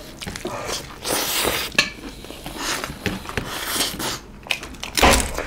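Eating sounds at the table: fingers mixing and scooping rice and chagempomba against steel plates, with chewing in between, in irregular bursts and clicks.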